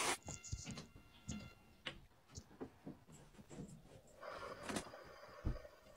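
Faint handling sounds: light taps and scratches, as of fingers working at a cardboard box, with a short rustle about four seconds in.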